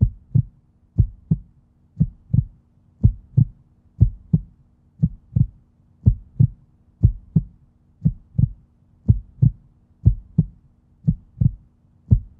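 Heartbeat sound effect: low, dull lub-dub double thumps repeating steadily about once a second, over a faint steady low drone.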